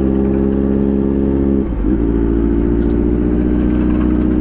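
Kawasaki Z900 inline-four motorcycle engine with an aftermarket exhaust, running steadily at low revs while cruising. The note dips briefly a little under two seconds in as the rider shifts up a gear, then settles again at a lower pitch.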